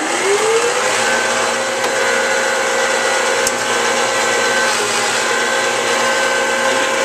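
Electric motor of a motorised Hacker block leveler running up to speed, its whine climbing over about the first second and then holding steady over a loud, even rush of machine noise.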